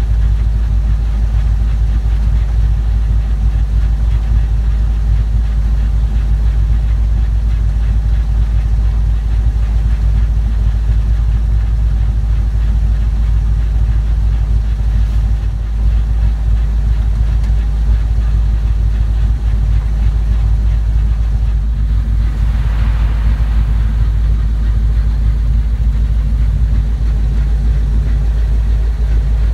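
An LS 4.8 V8 idling at about 800 rpm in third gear, driving the T-5 manual transmission, driveshaft and rear axle with the wheels off the ground, as a steady low drone with a grinding noise in the driveline. The owner suspects a fault inside the T-5 or the differential's ring and pinion, whose fluid is full of metal dust.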